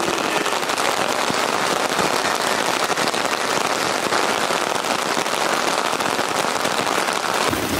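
Heavy rain falling on a tent, heard from inside: a steady dense hiss made of countless small drop hits on the fabric.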